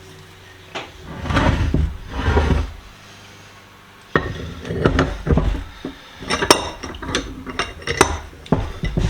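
Metal parts and tools handled on a workbench: a few soft rubbing and shuffling sounds, a short pause, then a run of sharp metallic clicks and knocks in the second half.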